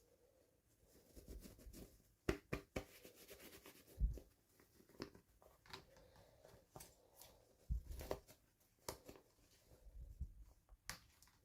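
Hands opening and handling small toy packaging: scattered faint clicks, taps and short rustles of plastic and cardboard.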